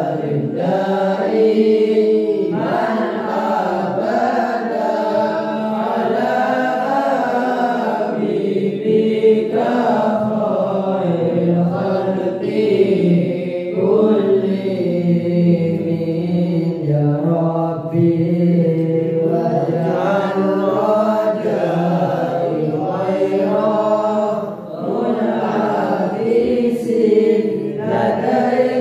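A group of boys' voices chanting sholawat (Arabic devotional praise of the Prophet) in a continuous melodic recitation, one voice leading through a microphone with the others joining.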